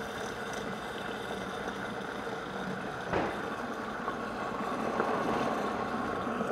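High-powered countertop blender motor running steadily, puréeing a thick chocolate and chile sauce while chicken stock is added through the lid to thin it.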